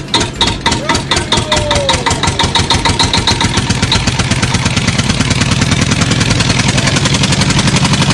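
Hands patting rhythmically on a cat's chest and sides, a quick drumming of soft thuds that speeds up steadily.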